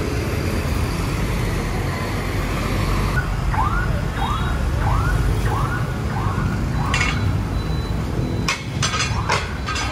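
Street traffic with motorbikes and cars running, and in the middle a vehicle's electronic siren or alarm giving about seven short rising-and-falling wails, somewhat under two a second. A few sharp clicks come near the end.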